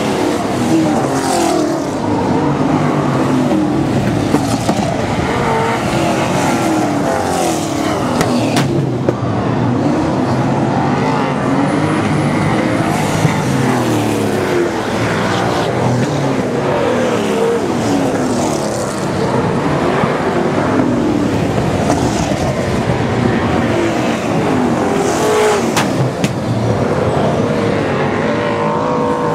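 A field of super saloon speedway cars racing on a dirt oval, several V8 engines overlapping and rising and falling in pitch as they rev through the turns and down the straights, loud and continuous.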